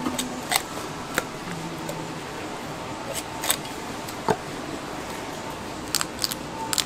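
Heavy cleaver cutting raw whole chickens on a round wooden chopping block: irregular sharp chops and knocks of the blade on the wood, over steady background noise.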